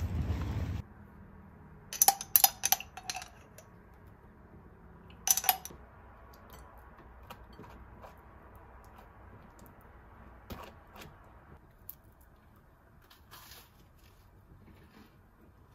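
A metal table knife clinking against a glass jam jar and a ceramic plate: a quick run of sharp, ringing clinks about two seconds in and one more a few seconds later, then fainter taps and scrapes as jam is spread on toast. A brief rumble of wind on the microphone at the very start.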